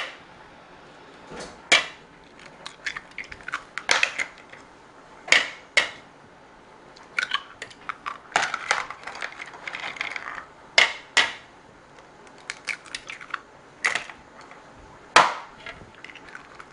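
Eggs being cracked one after another on the rim of a glass mixing bowl: a dozen or so sharp taps and clicks of eggshell on glass at irregular intervals.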